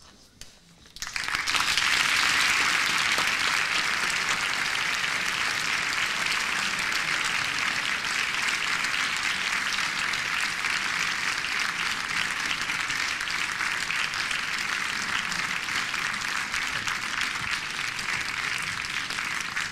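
Audience applauding, starting about a second in and continuing steadily, easing slightly near the end.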